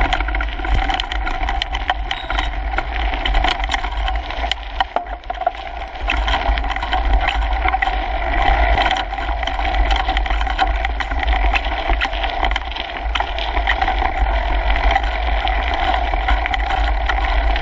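Kona Coiler mountain bike riding fast down a gravel trail, heard through a handlebar-mounted GoPro in its housing: a steady low rumble under constant rattling and clatter as the tyres and bike take the rough surface.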